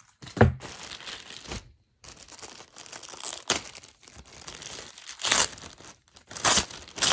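Clear plastic packaging bags crinkling and rustling as they are handled, with a few sharper, louder crackles among softer rustling.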